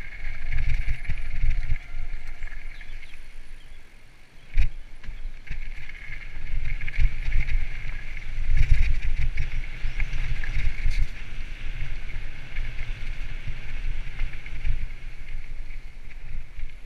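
Mountain bike rolling fast down a dirt and stone trail: heavy wind buffeting on the handlebar-mounted microphone over the rattle of tyres on loose ground, with one sharp knock about four and a half seconds in.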